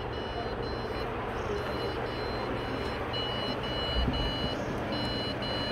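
Old desktop PC's motherboard speaker beeping on power-on: high, even beeps about two a second, in runs separated by short pauses, over a low steady hum. It is a POST error beep code, which the technician takes for a likely RAM fault.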